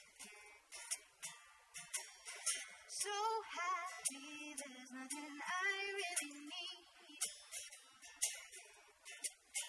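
A woman singing a slow song live into a microphone, her held notes in the middle wavering with vibrato, over a sparse accompaniment of short, sharp strokes.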